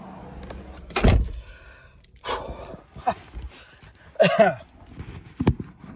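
A car door shuts with a heavy thunk about a second in, from inside the car. Rustling and handling noises follow, with a short weary groan about four seconds in and a sharp click near the end.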